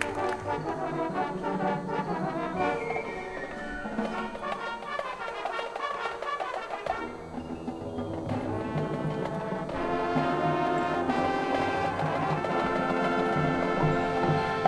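High school marching band playing its field show, led by the brass with sustained chords. A lower part comes in about seven seconds in, and the band grows louder from about ten seconds.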